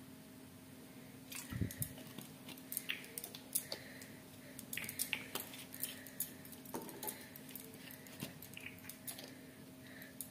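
Scattered light clicks and taps of small kitchen items being handled, such as a plastic bottle and cap and steel utensils, with a low thump about a second and a half in. A faint steady hum sits under them.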